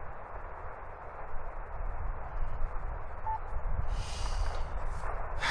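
Band-noise hiss from a Yaesu FT-891 HF transceiver's speaker while the operator tunes for a clear frequency on the 15-metre band, with wind rumbling on the microphone. A single short beep sounds about three seconds in.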